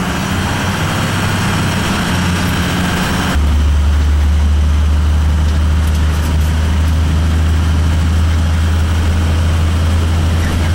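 Whirlpool gas furnace running after its repair, a steady mechanical hum; about three seconds in a louder, deep steady hum comes on and holds.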